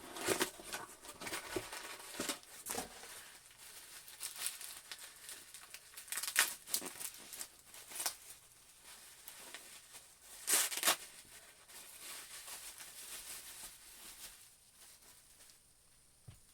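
Action-figure packaging being handled and torn open: plastic and cardboard crinkling and tearing in irregular bursts with sharp crackles, dying down near the end.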